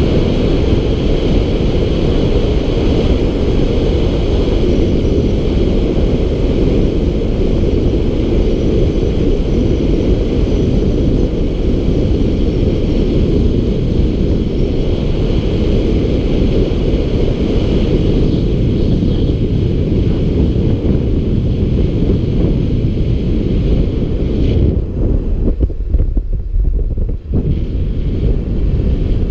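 Wind rushing over the microphone of a camera mounted on a moving bicycle, a loud steady low rumble with a fainter hiss above it. The hiss drops out for a couple of seconds near the end.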